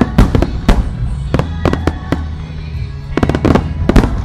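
Aerial fireworks shells bursting in quick succession, a rapid series of sharp bangs and crackles that is heaviest near the start and again near the end. Music plays underneath for the musical display.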